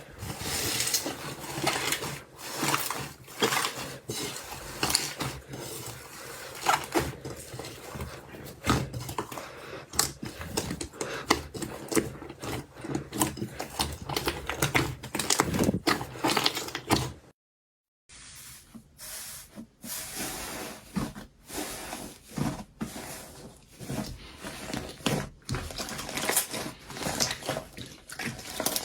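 Slime being squished and worked, giving a dense run of irregular sticky crackles, clicks and pops. The sound cuts out briefly a little over halfway through, then resumes.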